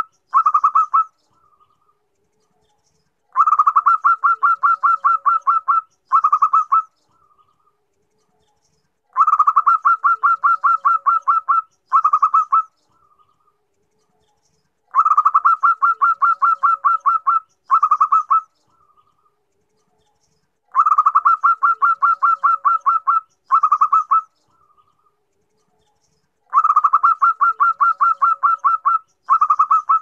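Zebra dove (perkutut) cooing: each phrase is a run of rapid staccato notes lasting about two and a half seconds, a brief break, a shorter run, and a soft closing note, repeated about every six seconds. It is offered as a female's call to a male, used as a lure to get males to answer.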